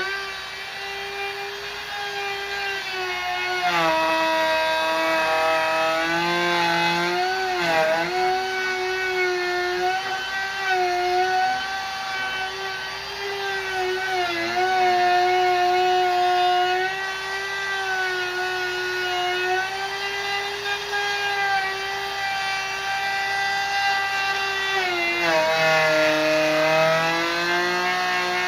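Handheld wood router cutting a juice groove into a wooden cutting board: a steady motor whine whose pitch dips and recovers several times as the bit bites into the wood.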